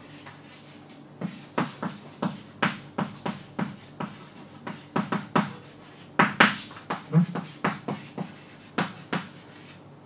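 Chalk writing on a chalkboard: an irregular run of sharp taps and short scratchy strokes as the letters are written, stopping about a second before the end.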